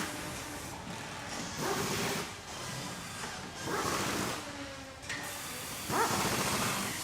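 Factory machinery ambience: a steady mechanical din with a louder hissing swell that comes back about every two seconds, over faint steady hums.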